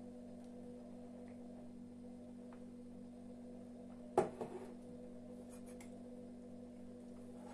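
A steady low electrical hum, with a single sharp knock about four seconds in, a glass mug being set down on a table, followed by a few faint clicks.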